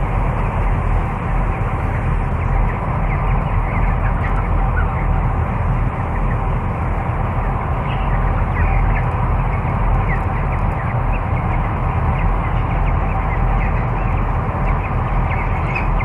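Many 21-day-old broiler chickens chirping and clucking over the steady drone of the shed's cone ventilation fans.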